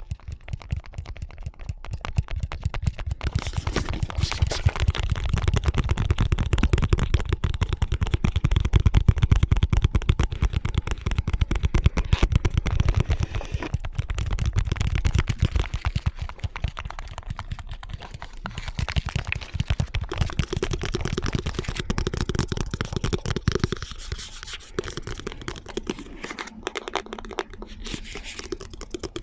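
Rapid nail and fingertip tapping, with several tapping tracks layered over one another. The texture changes a few times as one set of taps fades out and another fades in.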